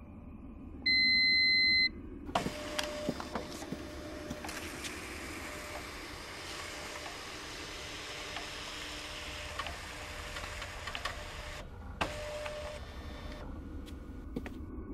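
A single steady electronic beep lasting about a second, then a long crackling hiss dotted with clicks that cuts off suddenly about twelve seconds in, followed by a brief burst of the same hiss and fainter crackle.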